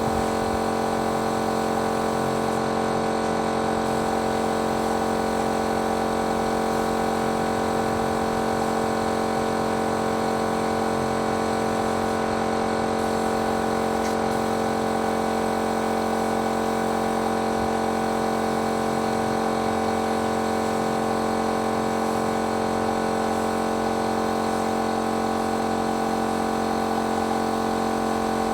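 An electric machine runs with a steady, even hum that does not change in pitch or level.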